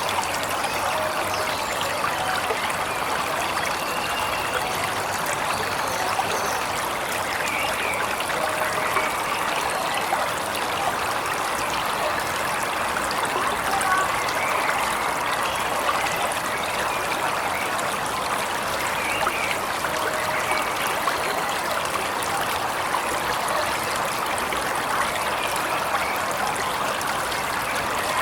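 Steady rush and splash of a waterfall, with a few faint short bird calls now and then.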